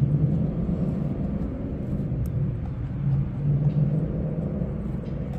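A steady low rumble of motor vehicle engine noise, wavering slightly, with a few faint ticks.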